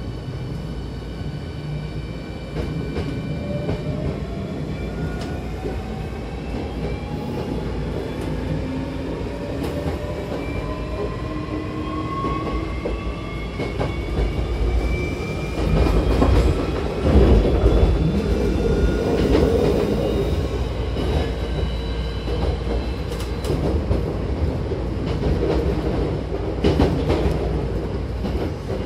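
Hankyu Kyoto Line electric train accelerating, heard from inside the car by the doors: the traction motors' whine rises steadily in pitch in several parallel tones over about twenty seconds, above a steady running rumble. Partway through the rumble grows louder, and the wheels click over rail joints.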